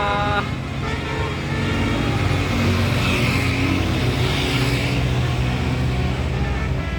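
A multi-note basuri musical bus horn cuts off just after the start, then a heavy bus engine runs steadily as the bus goes past, with a rushing hiss swelling and fading in the middle.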